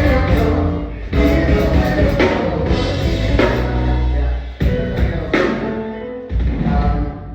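A live band playing gospel music with a drum kit, bass and singing voices, punctuated by several loud drum hits; the music then stops.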